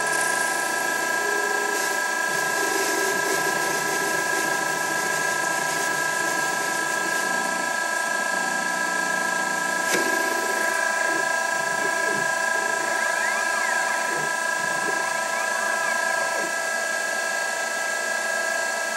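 Denford Orac CNC lathe running with its spindle turning, a steady whine of several tones from the machine. There is a sharp click about halfway, and short rising-and-falling whines come in the later seconds.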